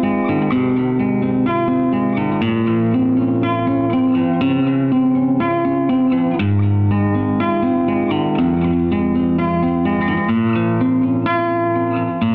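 Background instrumental music led by plucked guitar over sustained bass notes, at a steady level.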